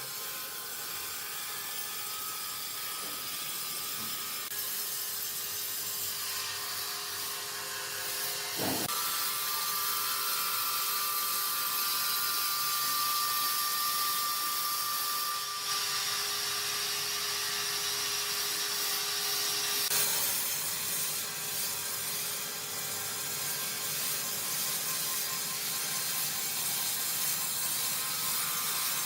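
Sawmill machinery running, with a steady whine and mechanical noise of wood being sawn. A brief low thud comes about nine seconds in, and the noise grows brighter and hissier for several seconds in the middle.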